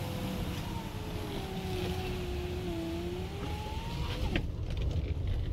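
Tesla Model X electric drive whining over tyre and road noise, heard inside the cabin. The whine falls in pitch and then rises again with road speed. A short click sounds about four seconds in.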